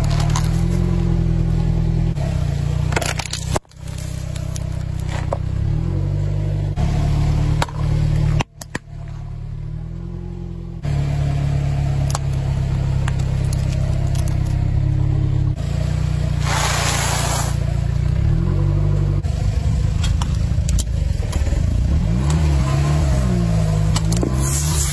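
A car engine running and revving while its tyres roll over and crush plastic objects, with crackling and snapping plastic, in several short cuts. Near the end, a crushed aerosol can hisses as it sprays out.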